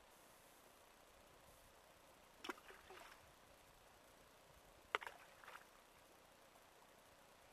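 Faint, steady flow of a shallow river running over a gravel bed. Short, sharp sounds come in two small clusters, about two and a half and five seconds in; the second cluster is the louder.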